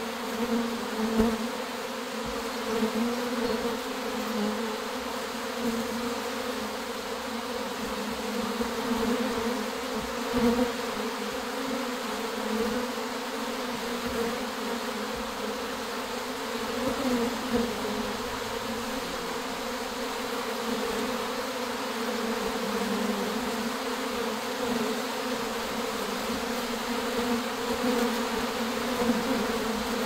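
Honey bee swarm buzzing, a steady, even hum of many wingbeats as bees fly off and around the clustered swarm.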